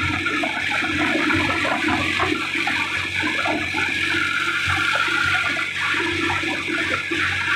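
Tractor engine running as the tractor drives along a road, with a steady rushing of wind on the microphone over it.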